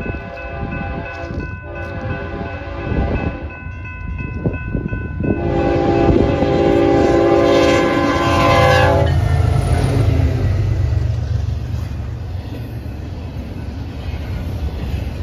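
Railroad grade-crossing warning bells ringing as a BNSF freight train approaches; about five and a half seconds in, the lead diesel locomotive's air horn sounds one long chord for about three and a half seconds, dipping in pitch at its end as it passes. After that come the low rumble of the locomotives and the clatter of double-stack container well cars rolling by.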